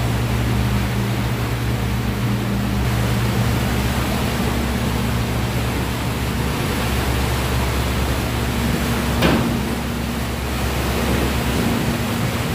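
Water rushing and churning as it pours in under a partly opened hydraulic sluice gate: a steady, loud rush of turbulent water with a steady low hum underneath. A short click sounds about nine seconds in.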